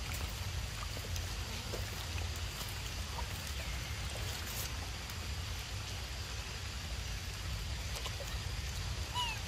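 Steady low rumble and faint hiss of outdoor background noise, with a few faint clicks and one short high squeak that glides upward near the end.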